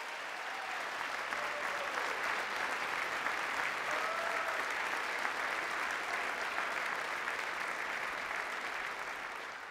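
Large crowd of legislators applauding in a standing ovation: a dense, steady clapping that dies away in the last second, with a few voices calling out in it.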